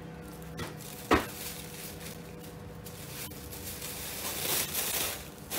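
Black plastic wrapping rustling and crinkling as a handbag is pulled out of it, with a sharp tap about a second in; the rustling grows louder near the end.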